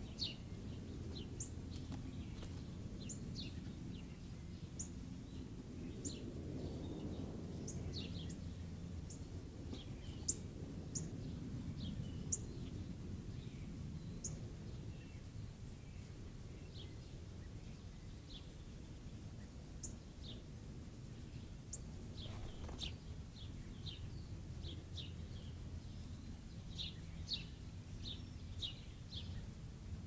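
Small songbirds giving short, high chirps, one at a time and scattered through, coming faster in a cluster near the end. Under them runs a steady low background rumble.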